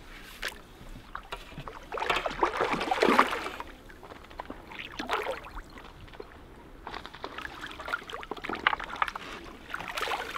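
A hooked carp splashing at the water's surface as it is played in to the bank, in several bursts. Near the end it splashes into the landing net.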